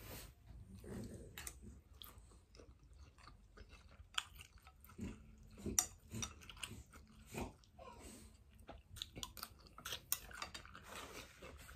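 A person chewing a mouthful of noodles and meatball close to the microphone: soft, irregular chewing and mouth clicks.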